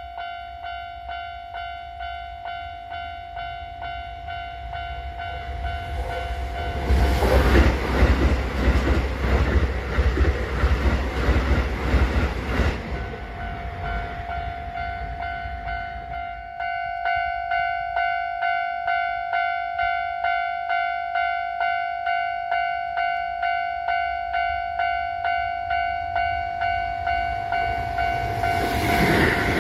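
Electronic level-crossing alarm bell ringing with an evenly repeating ding. A train rumbles past the crossing from about 7 to 13 seconds in, drowning the bell. Near the end a second Keisei train comes up loud, while the bell keeps ringing.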